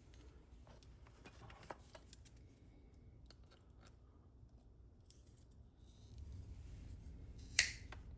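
Cutters clipping off a protruding loop of a plastic-welding repair staple: light handling clicks, then one sharp snip near the end.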